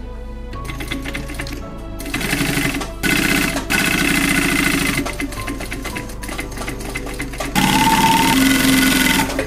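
Industrial flatbed sewing machine stitching through a bag panel in four short runs, stopping and starting between them, with the longest and loudest run near the end.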